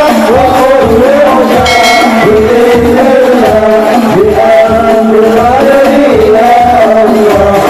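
Hadroh ensemble performing sholawat: men's voices sing a devotional melody together over a steady low frame-drum beat.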